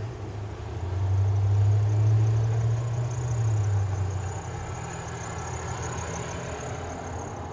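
A motor vehicle's engine running with a low, steady hum. It grows louder about a second in and fades again after about four seconds, with a faint high whine throughout.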